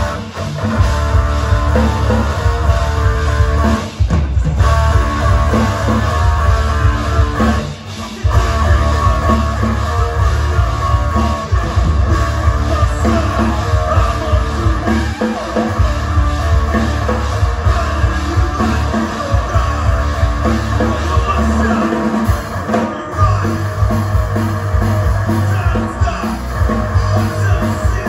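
Live rock band playing a punk/metal song on electric guitars and a drum kit, with a singer, at full volume. The band drops out briefly about four seconds and eight seconds in.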